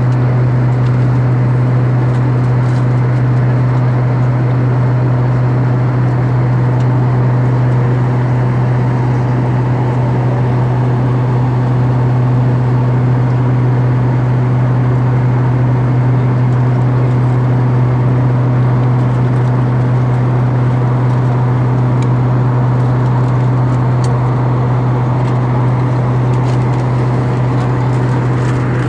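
Steady in-flight cabin drone of an Airbus A321 airliner: an unchanging low hum under an even rushing noise, with a few faint light clicks now and then.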